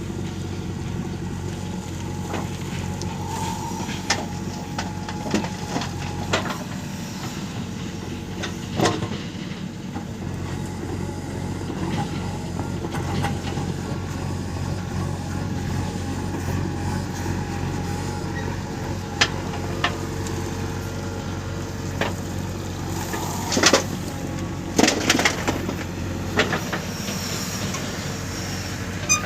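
Diesel engine of earth-moving machinery, a backhoe loader or a tractor, running steadily, with occasional sharp clanks and knocks, several close together near the end.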